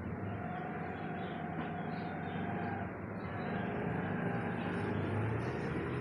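Steady outdoor background noise, a low, even rumble with no distinct events.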